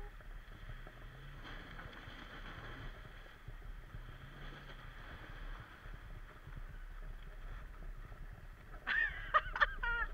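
Steady rush of river water as a Suzuki Vitara wades through it, its engine a faint low hum under the water noise. Near the end, a few seconds of loud calls break in over it.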